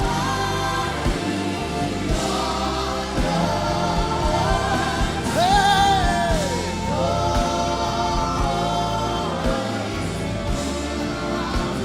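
Live gospel worship music: voices in a choir holding long sung notes over instrumental accompaniment, with a solo voice calling out "hey" about halfway through.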